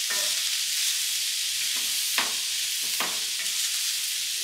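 Sliced onions sizzling in a little oil on a hot tawa (flat griddle) while a wooden spatula stirs them, with a few scrapes against the pan, the clearest about halfway through and another a second later. The onions are being browned slowly over a low gas flame.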